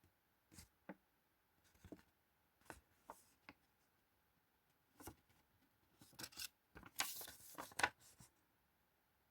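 Paper and cardboard packaging handled: scattered short rustles and taps, with a longer rustle about seven seconds in.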